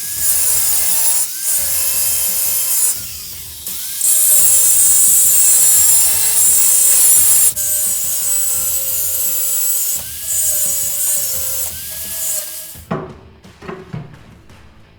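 Power grinder cutting through the stitch welds on a leaf-spring hanger, in several long runs whose whine dips under load and recovers, with short pauses between them. It stops near the end.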